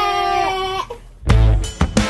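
A woman's voice draws out the last syllable of a word on one steady pitch. About a second in, background music with deep bass and drum hits starts.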